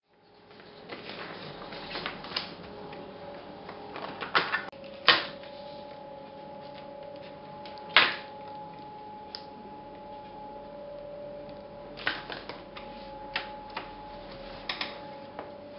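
Irregular sharp clicks and taps, a few single loud ones and some in quick clusters, over a steady hum with a faint high whine.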